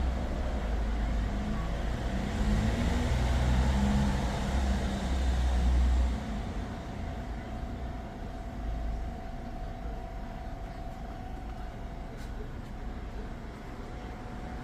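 Hyundai Avante running during an air-conditioning service as compressor oil is injected into the AC system. A hiss over a heavier low rumble lasts until about six seconds in, then it settles to a quieter, steady hum with a faint constant tone.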